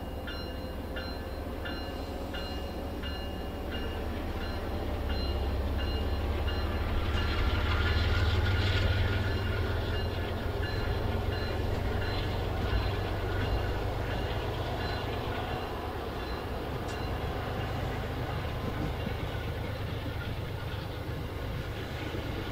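MBTA commuter train coaches rolling past: a steady low rumble of wheels on rail that swells to its loudest about a third of the way through and then settles. In the first few seconds a bell rings about twice a second.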